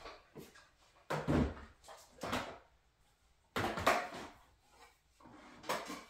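Craft tools and supplies being moved and set down on a work table: four separate knocks and clatters, the first and third the loudest.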